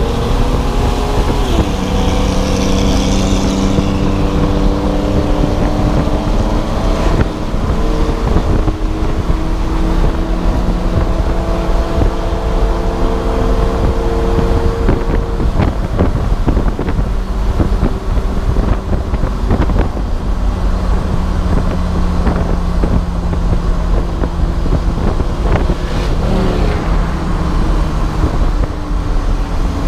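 Race car engine running hard on track, its pitch climbing and dropping repeatedly with throttle and gear changes, over steady wind and road noise.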